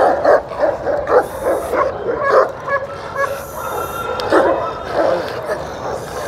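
Rottweiler barking repeatedly in short bursts while it bites a stick held out to provoke it.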